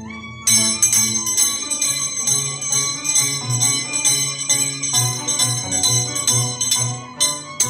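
Scissors-dance music: the dancer's pair of loose steel blades (tijeras) are clinked together in a quick, steady rhythm, giving a bright metallic ringing like small bells. Underneath are a violin and an Andean harp, whose low plucked notes pulse on the beat.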